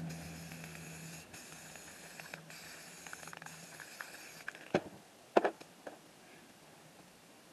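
Aerosol spray-paint can hissing in several spurts with brief breaks, stopping a little over four seconds in. Two sharp knocks follow close together.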